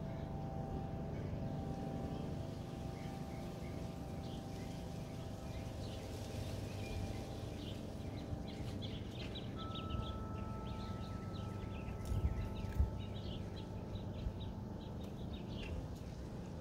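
Songbirds chirping, busiest in the second half, over a steady low wind rumble, with wind chimes ringing in long held tones that fade at the start and sound again about ten seconds in. A few low bumps of wind on the microphone come near twelve seconds.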